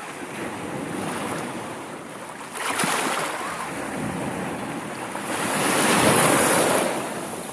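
Sea waves washing in, with a sharp surge about a third of the way in and a bigger, louder surge near the end that fades away, over wind buffeting the microphone.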